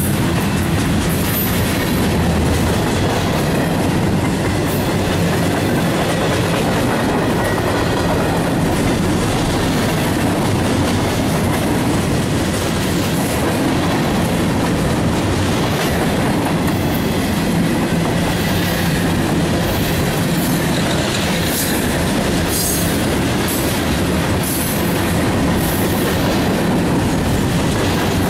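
Freight cars of a mixed freight train (covered hoppers, flatcars, tank car, boxcars) rolling past close by, their wheels giving a steady, loud rumble and clatter on the rails with scattered higher squeaks.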